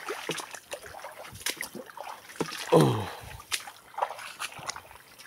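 Footsteps wading and splashing through ankle-deep floodwater, with uneven sloshes and splashes. About three seconds in, a person gives one short vocal sound that falls steeply in pitch, the loudest moment.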